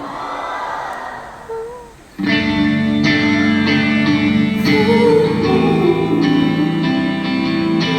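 A live band starts a song's intro abruptly about two seconds in: loud guitar strumming in a steady rhythm over sustained lower notes, heard live in the hall.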